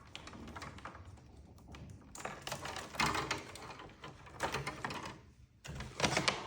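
Irregular plastic clicks and taps as cable connectors are unplugged from the front panel of a ceiling cassette fan coil unit.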